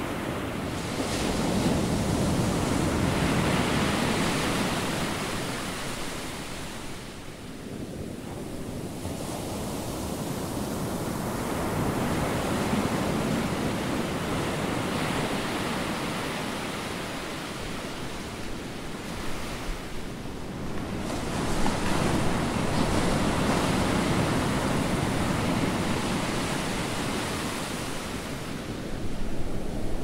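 Ocean surf: a steady hiss of waves breaking and washing in, swelling and ebbing in slow surges about ten seconds apart.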